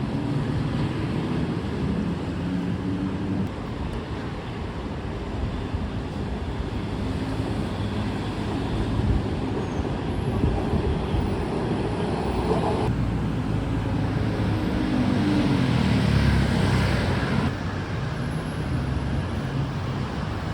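Steady vehicle rumble with engine hum, in a few edited segments that cut in and out.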